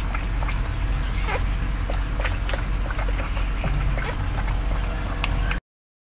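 Newborn puppies giving faint, short squeaks and cries over a steady low rumble. The sound cuts off abruptly near the end.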